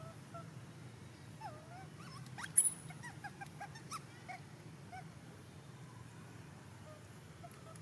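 Infant long-tailed macaque giving a string of short, high whimpering calls that slide up and down in pitch, thickest between about one and a half and four seconds in. One sharp click about two and a half seconds in.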